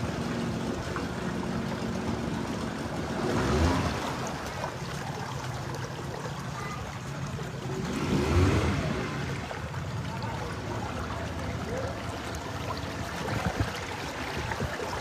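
A boat's motor running steadily as it moves through floodwater, with water rushing and splashing along the hull. The engine noise swells briefly twice, about three and a half and eight and a half seconds in.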